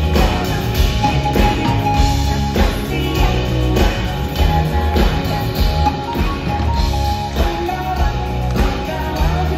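Live rock band playing on stage: electric guitar over drum kit and bass with keyboards, steady and loud throughout.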